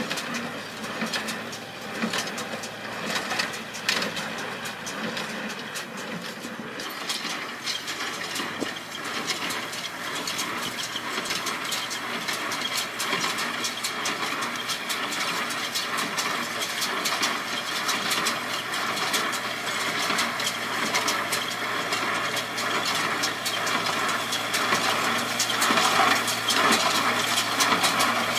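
Tractor engine running steadily with dense mechanical clatter, growing gradually louder toward the end.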